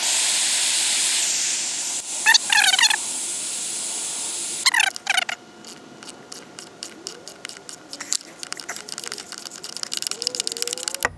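Handheld gas torch hissing steadily for about five seconds as it heats a seized bolt in an aluminum thermostat housing, then cut off. It is followed by a ratchet wrench clicking in quick runs as the heated bolt is worked loose.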